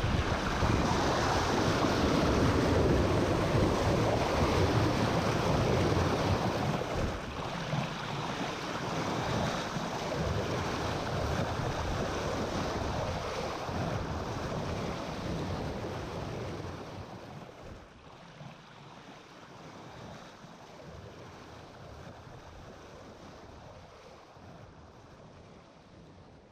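Water rushing and splashing along the hull of a J/120 sailboat under way, with wind on the microphone. It grows quieter after about seventeen seconds and fades out at the end.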